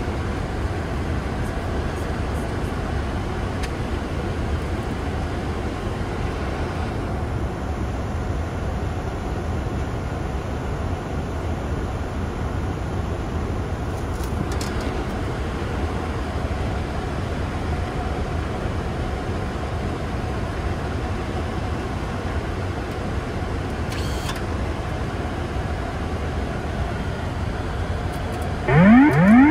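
Steady cockpit noise of a Boeing 747-8 Freighter on approach: a constant rush of airflow and engine noise. Near the end, a few quick rising electronic tones sound one after another, louder than the background.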